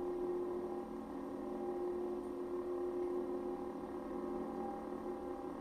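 Lightsaber idle hum from the CFX soundboard in an UltraSabers Aeon IV hilt, played through the hilt's speaker while the blade is lit: a steady hum of several held tones.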